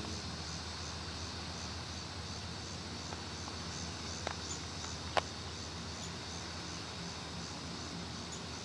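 Insects chirping steadily in a high, evenly pulsing chorus, with a low steady hum beneath. Two sharp clicks stand out about four and five seconds in, the second louder.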